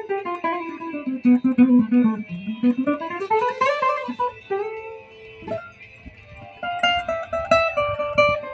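Solo acoustic guitar played fingerstyle, starting abruptly with a quick run of notes that falls and then climbs back up, followed by separately picked melody notes over chords.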